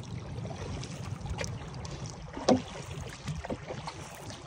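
Kayak paddling: a few short splashes as the paddle blades dip and pull through the water, the loudest about two and a half seconds in, over a steady low rumble.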